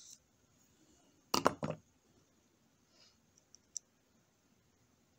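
A quick cluster of three or four sharp clicks about a second in, then two small ticks near the middle: a metal needle and tool tapping and catching against the plastic lens ring of a drone's gimbal camera.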